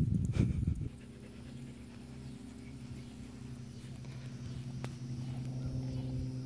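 A dog panting in quick breaths for about the first second, then a steady low hum with several pitched tones that slowly grows louder.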